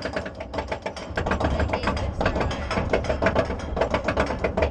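Viper steel roller coaster climbing its chain lift hill: the anti-rollback dogs clack rapidly and evenly over the ratchet track, about ten clacks a second, over a low rumble.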